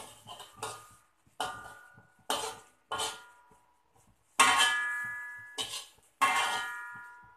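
Metal spatula knocking and scraping against a metal wok during stir-frying: about eight strokes, each leaving the wok ringing and fading away, with the two loudest strokes in the second half.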